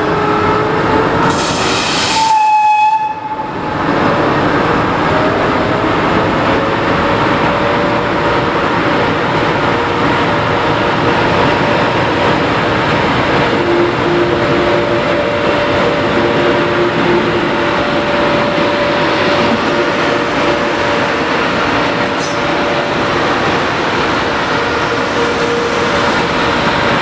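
Preserved vintage railway vehicle running along the track with a steady rolling noise and a faint steady whine. A short horn blast sounds about two seconds in.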